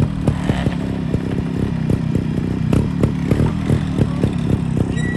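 Trials motorcycle engine running and revving, with a regular pulse of about four to five beats a second.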